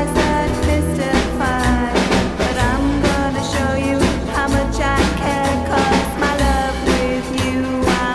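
Rock and roll recording playing: a steady drum beat and bass under a lead melody with bending notes.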